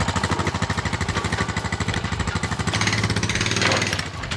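An engine idling with a steady rapid pulse, about ten beats a second. About three seconds in, a brief higher strained noise rises over it for roughly a second.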